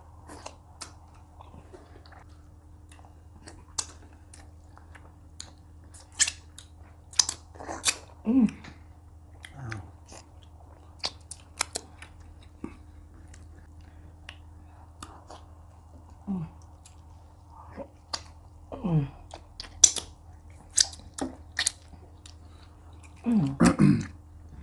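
Close-miked eating: irregular wet chewing, lip smacks and mouth clicks from eating fufu with spinach soup and meat, over a steady low hum. A brief voice-like sound comes near the end.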